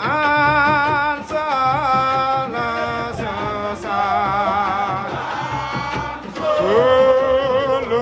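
A man singing an Islamic devotional chant through a microphone and loudspeakers, holding long notes with a wavering pitch and sliding between them, with music underneath.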